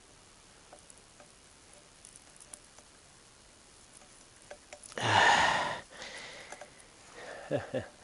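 Faint scattered clicks and light metal taps of small parts being handled while shredder blades are unbolted and flipped, then a loud, short rush of noise about five seconds in, followed by a brief murmured voice near the end.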